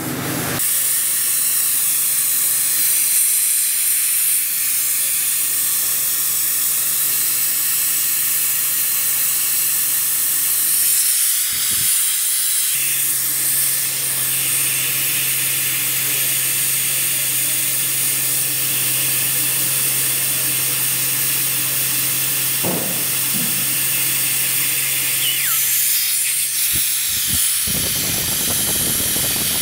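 Compressed air hissing steadily as it is fed through a loosely fitted, unsoldered copper inlet pipe into a brass model twin-cylinder engine being test-run. A steady low hum sits under the hiss and stops near the end, with a few brief clicks.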